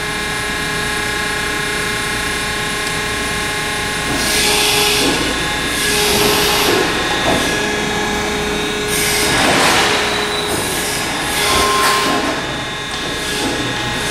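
Thalmann ZR series sheet-metal long folder running through a fold cycle to bend a tight corner: a steady machine hum with three swells of louder drive noise, about 4, 9 and 12 seconds in, as the beams move.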